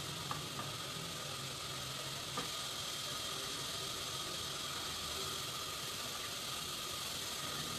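Steady hiss of background noise, with two faint light taps, about a third of a second and two and a half seconds in, from a kitchen knife touching a wooden board as it slices a rolled sheet of dough.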